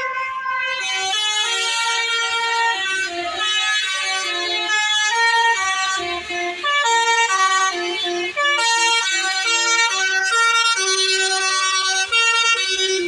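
Bus telolet horn, a multi-tone musical air horn, playing a melody of held notes that step from pitch to pitch every fraction of a second without a break, over a faint low engine rumble.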